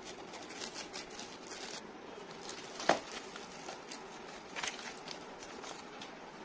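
Clear plastic packaging crinkling and rustling as a cardboard box is slid out of it, with scattered soft crackles and a sharp tap about three seconds in, the loudest sound, then a few smaller taps.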